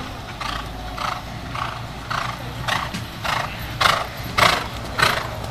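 A horse cantering on sand arena footing: its strides come as a steady beat a little under two a second, growing louder over the second half as the horse comes closer.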